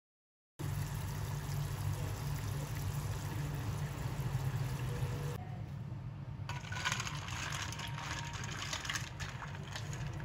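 Honey boiling in a stainless steel saucepan, a steady bubbling. About five seconds in it gives way to crackling and fizzing as the hot pot sits in a bowl of ice water to cool.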